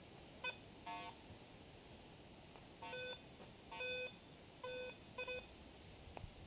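Garrett AT Pro metal detector giving short beeps, its target signals as the coil sweeps the grass. There are about six beeps at irregular spacing; most are on the same low tone, and one about a second in is at a different pitch.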